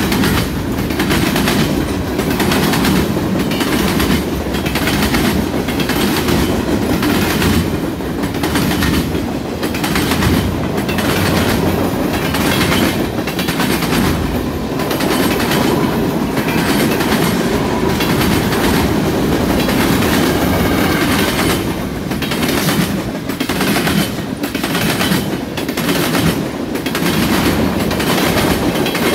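Freight cars rolling past close by: a steady rumble, with the wheels clacking over the track again and again.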